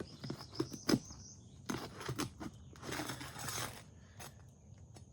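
Scattered clicks and taps with stretches of scraping and rustling as asphalt roof shingles are lifted and handled. The sharpest tap comes about a second in.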